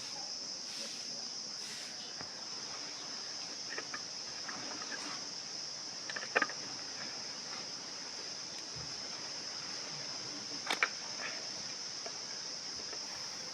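A few sharp clicks of small plastic and electronic parts being handled during the speaker repair, the two loudest about six and eleven seconds in, over a steady high-pitched background whine.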